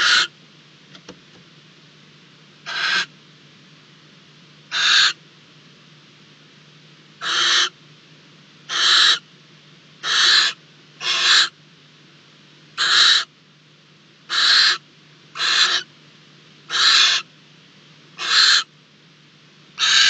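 Barn owl giving a series of harsh, hissing screech calls, about a dozen, each roughly half a second long and coming every one to two seconds.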